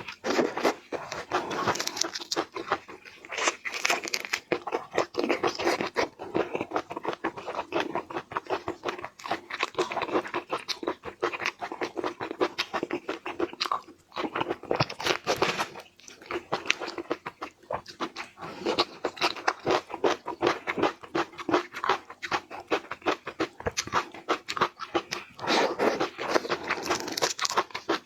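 Close-miked eating sounds: steady crunching and chewing with many sharp, irregular crackles, briefly pausing a couple of times.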